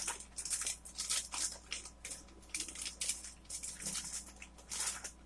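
Sealed action-figure packaging being opened: a run of short, irregular crinkles, rips and rustles.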